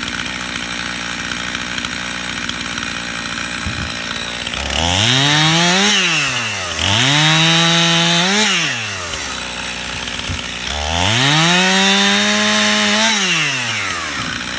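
Stihl chainsaw idling, then opened up to full throttle three times, dropping back to idle between bursts. In the middle burst the engine note sits lower while the chain cuts through a limb, then rises as the cut finishes.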